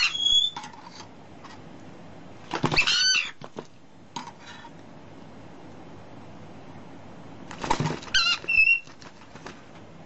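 Parrot squawking in three short bursts of quick up-and-down calls, at the start, about three seconds in and about eight seconds in.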